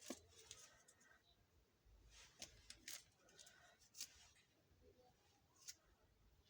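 Faint clicks and taps of small plastic toy kitchen pieces being handled, about five sharp ticks spread over a soft rustle.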